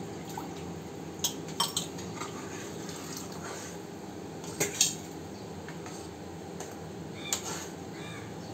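A steel spoon stirring thick tamarind gravy in a kadai, clinking sharply against the pan's side a few times, about a second and a half in, near the middle and again late on, over a steady low hiss. The gravy is being stirred after rice-flour paste went in to thicken it.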